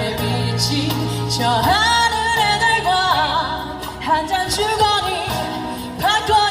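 A slow Korean pop ballad performed live: a voice singing drawn-out, wavering notes over sustained bass and chordal accompaniment.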